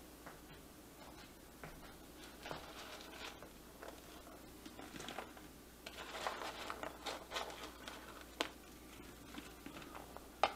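Faint rustling and light taps of French fries being set down by hand on a paper plate, busiest about six seconds in, with a few scattered soft clicks and knocks around it.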